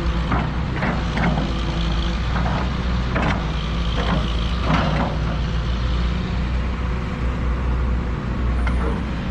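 Diesel engine of a backhoe running steadily as it digs, with several sharp knocks in the first half.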